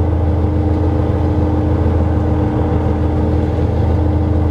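A commercial fishing boat's engine running steadily: a constant low drone with an even hum held above it.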